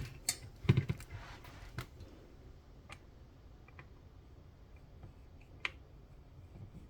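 Scattered small metallic clicks and light knocks from handling a Live Free Armory Apollo 11 9mm pistol while its trigger pull is checked, with a cluster in the first two seconds and a sharper single click about five and a half seconds in.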